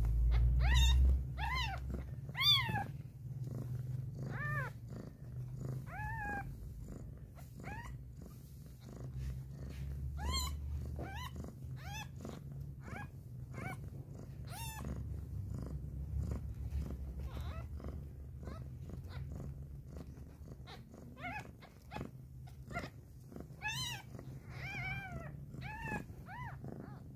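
Steady low purring, with frequent short, high-pitched squeaks from newborn kittens jostling one another for a teat while nursing; the squeaks come thickest at the start and again near the end.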